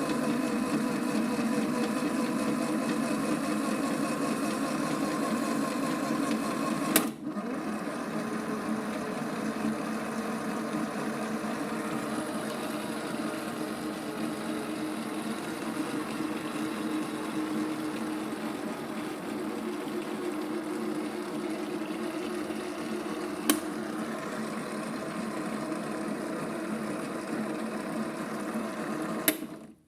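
Small electric motor of a Theo Klein toy Miele washing machine running steadily as it turns its drum during a wash with water. A sharp click about seven seconds in, after which it runs a little quieter, and another click later on; the sound cuts off abruptly at the very end.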